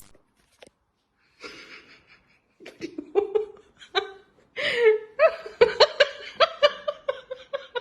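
A person laughing in quick, repeated bursts, after a breathy start about a second and a half in.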